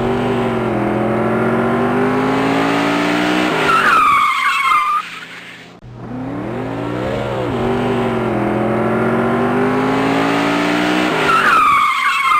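Race car engine running hard under power, its pitch shifting, then a loud tire squeal about four seconds in that dies away. The same pass repeats from about six seconds, ending in another tire squeal near the end.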